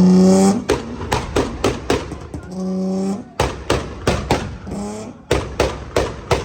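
Audi RS4 engine held at high revs, then let off into a rapid string of sharp exhaust pops and bangs. It is blipped up again twice, briefly, between the crackles.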